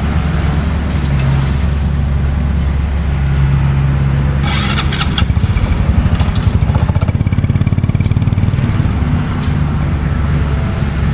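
Bulldozer's diesel engine running steadily with a low drone. About four and a half seconds in comes a short harsh burst of noise, then a few seconds of rapid, pulsing throb as the machine works harder.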